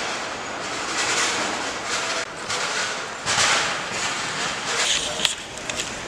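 City background noise: a rushing sound that swells and fades, with a few sharp clicks near the end.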